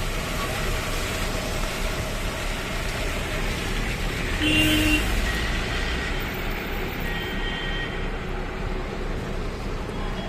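Road traffic passing on a highway, a steady rush of vehicles, with a vehicle horn tooting briefly about halfway through.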